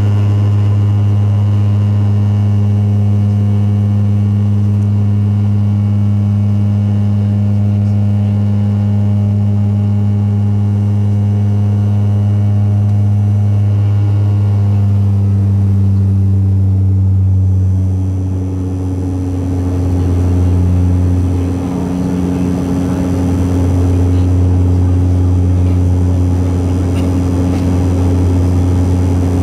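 Cabin noise of a Dash 8-Q400 climbing after take-off: the steady drone of its Pratt & Whitney PW150A turboprops and six-bladed propellers, heard beside the propeller. About two-thirds through, the drone wavers, dips twice and settles slightly lower in pitch, as the propeller speed is brought back for the climb.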